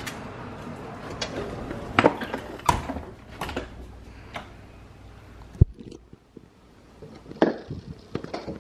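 Household handling noises: scattered light knocks and clicks around a front door, with one sharp knock a little past halfway and a cluster of knocks near the end.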